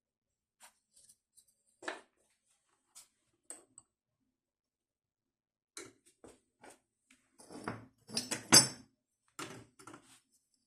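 Workshop handling noises: scattered light clinks and knocks of tools and small metal parts being picked up and set down, with a busier stretch of clattering about three-quarters through and the loudest knock within it.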